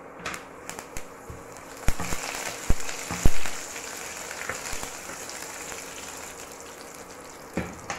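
Mustard and fenugreek seeds sizzling and spluttering in hot oil in a steel pan: a steady hiss with a few sharp pops about two to three and a half seconds in.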